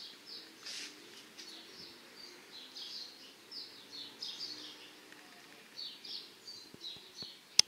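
Small birds chirping over and over, each call a short falling chirp, with a sharp click near the end.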